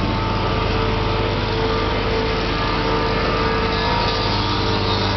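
Small engine running steadily: a constant drone with a held mid-pitched hum over it.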